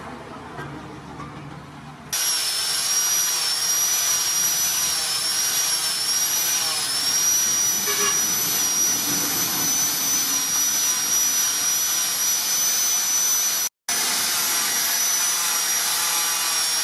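A high-speed electric power tool running steadily with a high-pitched whine over a loud rushing noise, starting suddenly about two seconds in and cutting out for an instant near the end.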